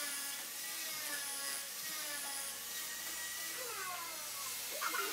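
Handheld electric angle grinder with a sanding disc sanding a wooden panel: a steady motor whine over the hiss of abrasive on wood, its pitch wavering and dipping as the disc is pressed into the surface.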